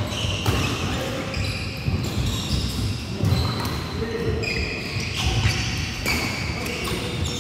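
Badminton doubles rally: rackets striking a nylon shuttlecock, and court shoes squeaking briefly and repeatedly on the wooden floor.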